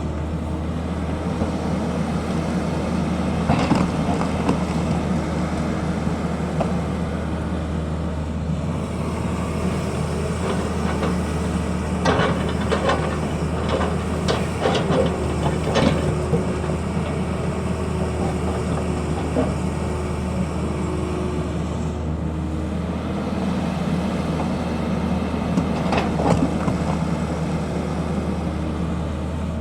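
Tata Hitachi excavator's diesel engine running steadily under a low drone, with clusters of knocks and clatter about four seconds in, through the middle, and again near the end.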